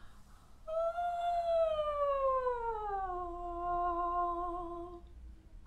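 A woman's voice singing one long open-mouthed note. It starts about a second in, slides down about an octave, holds the low note and stops about five seconds in. The note is sung on the exhale as the body's weight 'slides down', a breathing and weight exercise for pianists.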